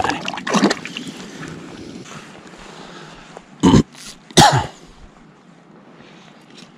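Wind and light water noise around an inflatable pontoon boat on a lake, with two short, loud rushing noises close together a little past halfway.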